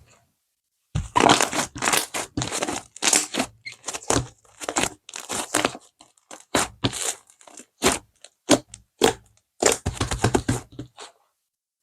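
Bead-topped whipped-cream slime being squeezed and pressed: quick, irregular bursts of crackling clicks and squishes, broken by short silent gaps.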